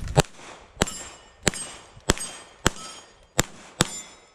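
Seven quick semi-automatic pistol shots, roughly every half second to second, each followed by the metallic ring of steel target plates being hit.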